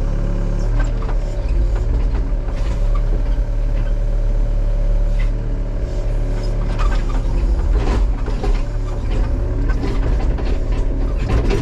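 Tracked excavator's diesel engine running steadily, with scattered knocks and cracks as the machine works.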